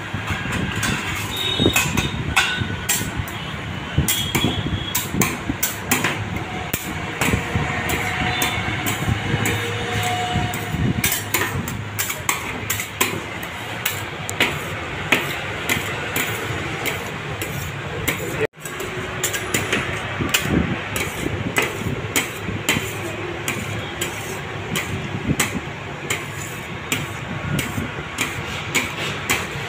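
Metal spatulas chopping, tapping and scraping ice cream mix on a stainless-steel cold plate: rapid, irregular metal-on-metal clacks.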